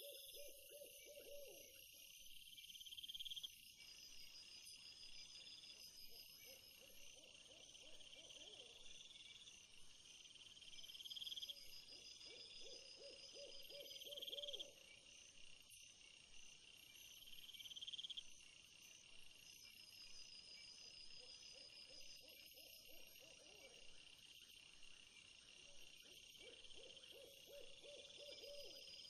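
Insects chirping in repeated bursts over steady high trills, with a low, wavering hoot-like call sounding about five times, several seconds apart.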